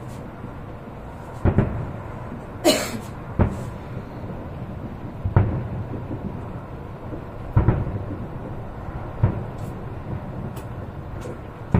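Aerial fireworks bursting at a distance: a series of booms, some in quick pairs, each with a short echoing tail, over a steady low rumble.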